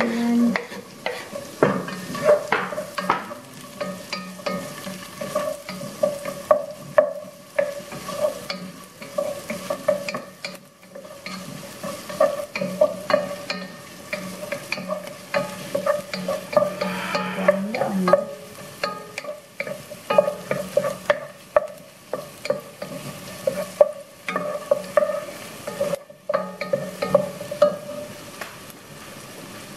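Diced red onion frying in melted butter in a granite-coated pot, sizzling steadily while a wooden spatula stirs and scrapes it around the pan in many short strokes.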